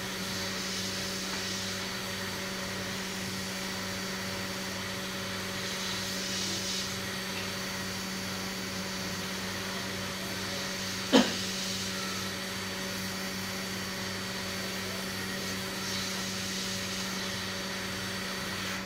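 Hot air rework station blowing a steady stream of air with a low hum, heating a PCI bridge chip on a motherboard to melt its solder for removal. A single sharp click comes about eleven seconds in.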